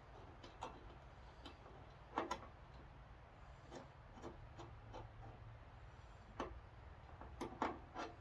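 Faint, scattered small clicks and taps of hands handling a telescope's focuser and its thumbscrews while a part is fitted into it, with a few clicks about two seconds in and a quicker run of them near the end.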